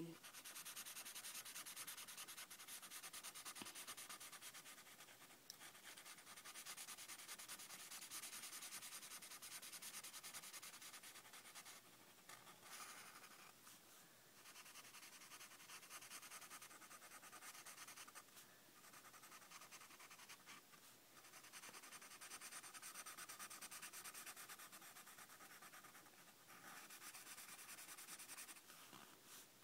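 Faint scratchy rubbing of a black Sharpie marker scribbling back and forth on lined notebook paper, colouring in a drawn letter, with a few brief pauses between strokes.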